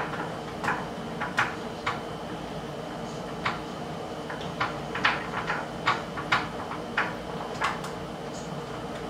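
Irregular light clicks and knocks of hands fitting a bolt and hardware against a wooden bunk bed's headboard post, over a steady background hum.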